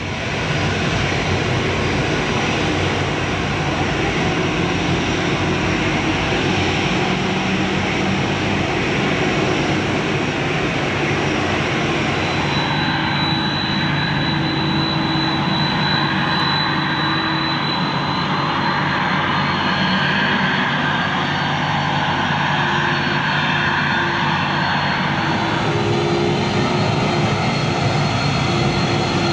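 Boeing 767 twin jet engines running steadily at taxi power: a continuous jet hiss and hum, with a thin high whistle coming in about halfway through.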